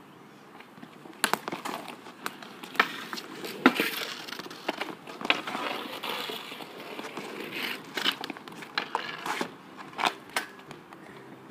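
Inline skate wheels rolling and scraping on asphalt, with scattered sharp clacks of a hockey stick and goalie gear, the loudest knock a little under 4 seconds in.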